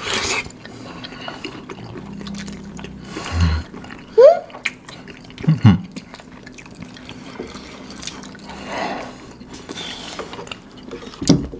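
Close-miked wet eating sounds: slurping spicy instant noodles and sauce from a spoon, and chewing, with a few short sharp slurps, the loudest about four seconds in.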